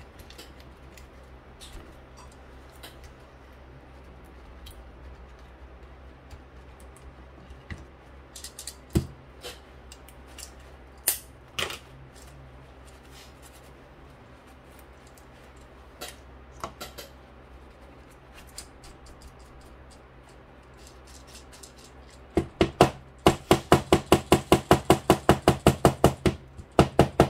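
Scattered light clicks and knocks of objects being handled. Near the end comes a fast, even run of loud taps, about five a second, lasting several seconds.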